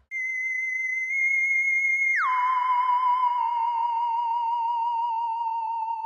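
Electronic end-card sound effect: a steady high tone that slides down about two seconds in and holds there with a wavering pitch.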